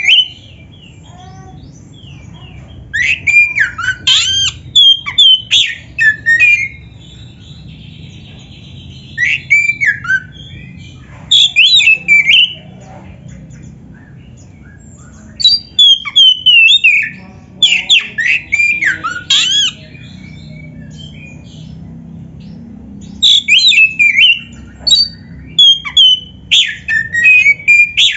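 Oriental magpie-robin (kacer) singing loud, fast phrases of sliding whistles and harsh squawky notes, each burst one to two seconds long, with pauses of a few seconds between them. A faint low hum lies underneath.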